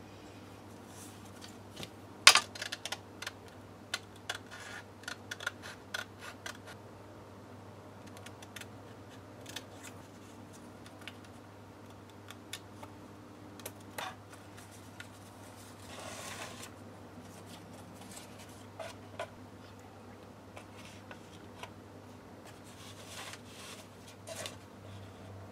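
Scissors snipping through paper in short irregular runs, with paper rustling and light handling clicks. One sharper knock comes about two seconds in, over a faint steady low hum.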